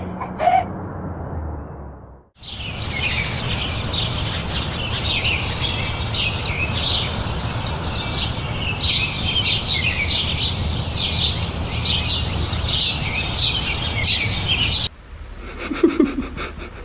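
A dense chorus of small birds chirping: many short, quick calls overlapping over a steady low background noise, cutting off about two seconds before the end.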